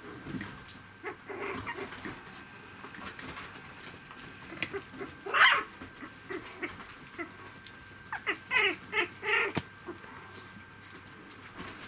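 Three-week-old poodle puppies squeaking while they play. There is one sharp squeal about halfway through and a quick run of three or four short yips near the end, with small scuffling clicks in between.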